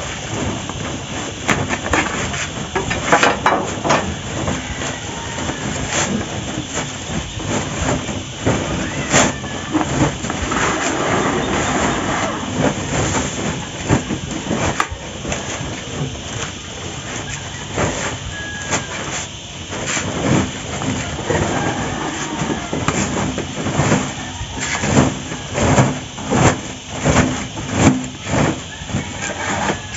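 Woven plastic sack rustling and crinkling as its gathered mouth is worked and closed by hand with twine. Near the end it settles into a run of regular pulls, a little more than one a second.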